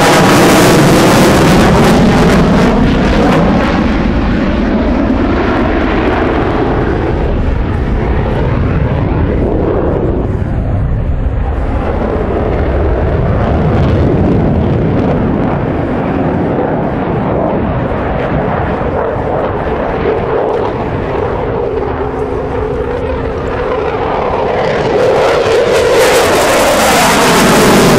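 Eurofighter Typhoon's twin EJ200 turbofan engines in a display flight: loud, continuous jet noise with a sweeping pitch. It is loudest at the start and again near the end as the jet passes close, and eases somewhat in between.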